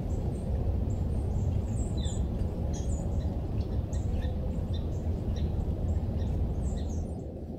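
Small birds chirping in short, scattered high calls over a steady low rumble, which eases off near the end.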